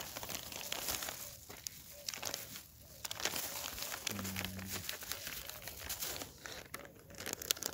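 A clear plastic bag and a plastic packet of detergent powder crinkling and rustling as they are handled, with irregular crackles throughout.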